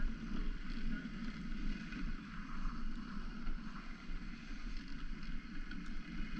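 Steady rushing hiss of a dog sled gliding over snow, with wind buffeting the microphone.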